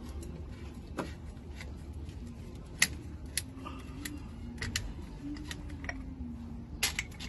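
Scattered light clicks and taps from handling a plastic motor-oil bottle and oil filter, the sharpest about three seconds in and again near the end, over a steady low hum.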